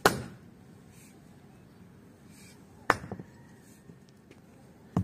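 Axe chopping into a short upright log and splitting it: a sharp chop right at the start, the loudest, then another sharp knock nearly three seconds in followed by a few small clatters, and a third knock at the very end.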